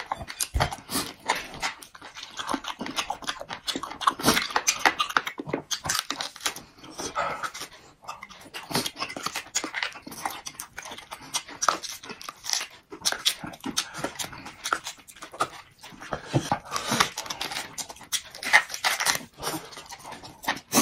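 Close-up eating sounds of a man working braised meat off a bone: chewing, sucking at the bone and smacking his lips, a dense irregular run of clicks.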